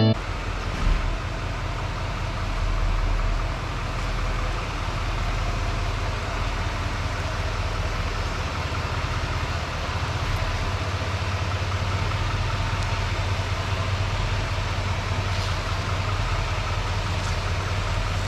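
Bobcat skid steer's engine running steadily while it lifts the pickup box off the frame.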